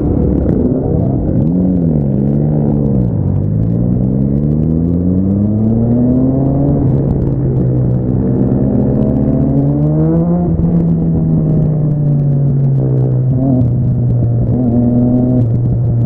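Motorcycle engine on the move: a couple of quick rev changes, then its pitch climbs steadily through two gears under acceleration before settling into a steady cruise about ten seconds in, over a constant low rush of wind and road noise.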